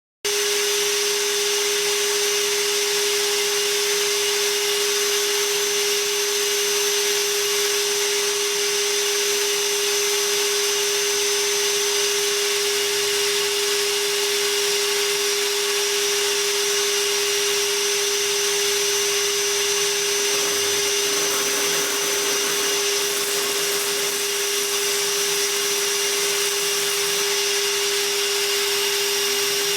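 Ridgid cordless NXT wet/dry vacuum running steadily on battery power: an even motor whine with a strong steady hum tone and airy rushing. It comes in abruptly right at the start.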